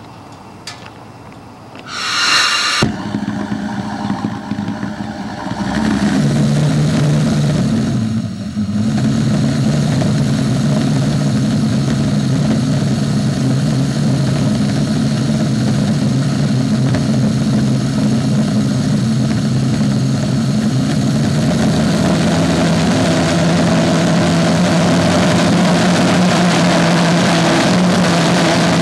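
Gluhareff G8-2 propane-fuelled pressure jet engine lighting off: a short hiss about two seconds in, a sudden start just after, then a loud steady running noise with a low droning tone from about six seconds on, briefly dipping once near eight and a half seconds.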